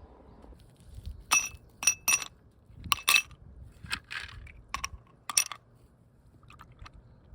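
A series of sharp clinks of hard objects knocking together, about ten in quick irregular succession, several with a brief bright ring, followed by a couple of faint ticks near the end.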